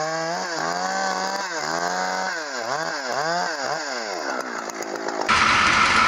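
Two-stroke chainsaw cutting through a catalpa trunk at full speed, its pitch dipping and rising again and again as it works through the cut. It stops suddenly near the end, replaced by a louder, noisier sound.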